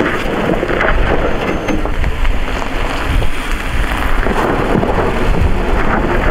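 Wind buffeting the microphone: a loud, steady low rumble and hiss.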